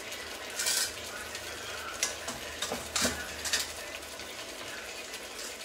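Food sizzling and simmering in pans on the hob, with metal kitchen utensils and a metal strainer knocking and scraping against a pan several times, loudest about three seconds in.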